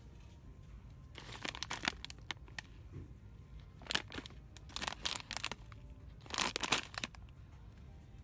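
Crinkling and rustling of handled packaging, in four short bursts with brief pauses between.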